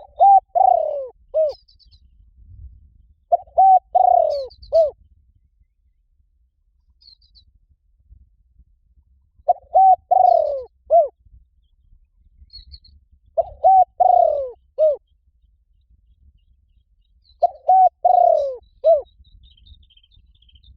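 Spotted dove cooing: five phrases, each a quick run of coos with a longer falling note and a short final coo, repeated every four to six seconds. It is the kind of call played as a decoy to draw wild spotted doves in. Faint high chirps of small birds sound between the phrases.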